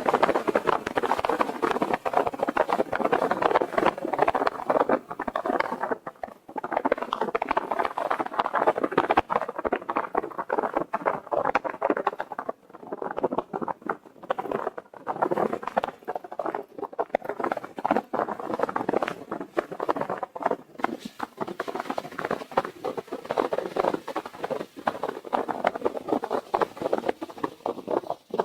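Car tyres crunching over packed snow while driving, a dense, irregular crackling patter with short lulls about six seconds in and again around twelve to fifteen seconds.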